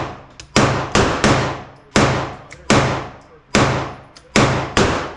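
About seven gunshots in quick succession, well under a second apart, each sharp crack echoing and dying away.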